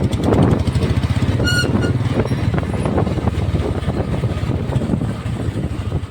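Royal Enfield Bullet's single-cylinder engine running under way, a steady rapid low exhaust thump. A short high beep sounds about one and a half seconds in.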